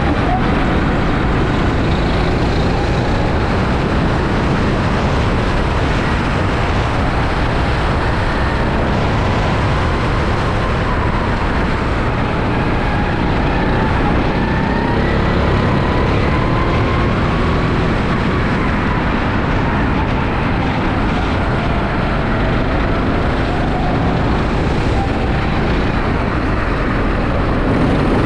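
Rental kart engine running hard on track, its pitch rising and falling with the throttle, under a dense rush of wind noise on the onboard microphone.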